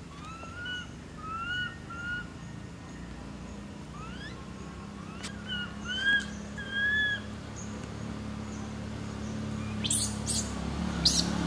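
Short, high, arched chirping calls in two groups of three, the second a few seconds later, then a few sharp clicks near the end.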